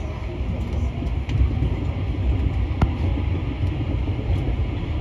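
Rubber-tyred MP14 metro train running through a tunnel, heard from inside: a steady low rumble with a few light ticks and one sharp click a little past halfway.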